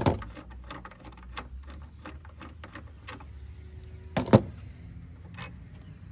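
Socket ratchet clicking and metal tool clinks as the 13 mm bolt of a battery hold-down bracket is worked loose, with two louder sharp knocks a little after four seconds in.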